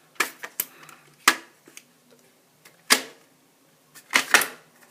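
Nerf Quad Blaster and foam darts being handled: a series of sharp plastic clicks and knocks. A quick few come at the start, single ones follow about a second and three seconds in, and two come close together near the end.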